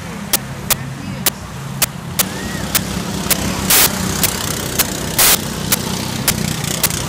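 Steady low drone of a car heard from inside the cabin, with sharp clicks about twice a second. Two short, loud hissing bursts come about halfway through, a second and a half apart.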